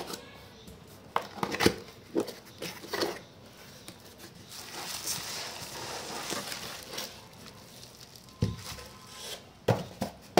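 A cardboard parts box being opened and handled, with sharp clicks and knocks. Then bubble wrap crinkles as the wrapped part is pulled out, and two dull thumps follow near the end as it is set down on a cloth-covered table.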